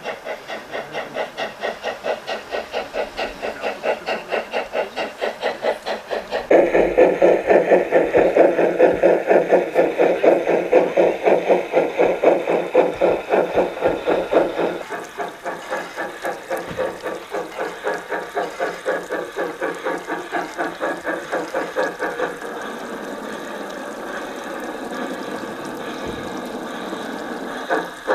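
Sound module of a garden-scale model of a Harz narrow-gauge steam tank engine (99 7234) playing steam-locomotive chuffing through its loudspeaker, about three chuffs a second. It gives way to a steady steam hiss for several seconds near the end.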